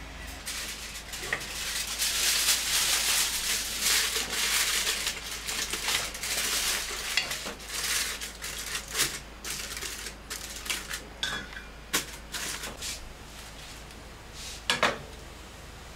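Aluminium foil crinkling and crackling as it is pressed and crimped by hand over the rim of a steel cooking pot, sealing it in place of a lid that does not close properly. Scattered clicks of foil against the metal rim, with two sharp clinks near the end.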